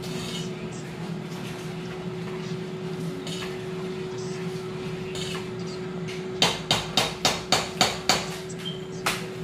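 A quick run of about seven sharp knocks, three to four a second, then one more knock, over a steady low hum.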